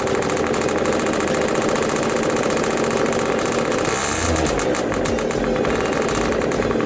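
Scooter engine running, cold after weeks of standing unused, with a brief rev of the throttle about halfway through.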